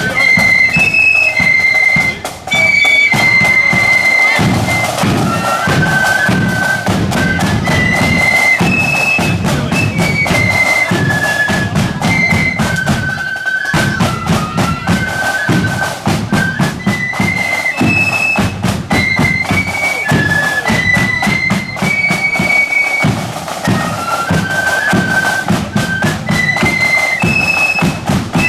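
Marching flute band playing a tune: flutes in unison carry a high melody over a steady drum beat.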